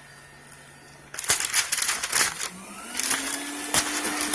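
Roboclean vacuum cleaner: a second or so of rattling and crackling handling noise, then its motor spins up with a rising whine about halfway through and settles into a steady run.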